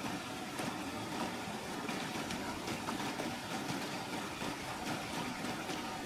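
Rushing river water: a steady, even noise, with a few faint clicks over it.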